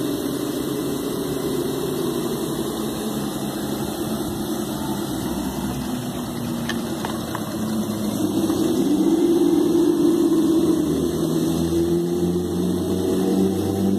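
Traxxas TRX-4 RC crawler's electric motor and gearbox whining as it creeps along under throttle, the pitch wavering with the throttle. It grows louder about halfway through, with a rise and fall in pitch as the truck is driven harder.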